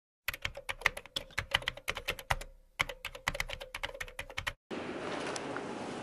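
A rapid, irregular run of sharp clicks, about eight to ten a second, with a short pause about halfway, stopping abruptly a little after four and a half seconds; a steady low hiss follows.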